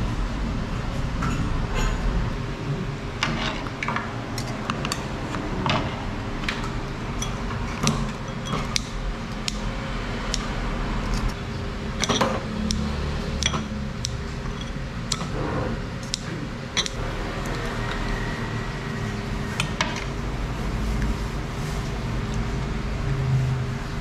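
Metal utensils (tongs, scissors and a ladle) clinking and scraping against ceramic bowls and a large aluminium soup pot, in scattered sharp clicks and taps, over a steady low rumble.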